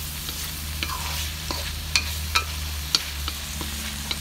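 Fried tofu and minced pork sizzling in a non-stick wok while a spatula stirs them, with a steady sizzle and irregular sharp knocks and scrapes of the spatula against the pan.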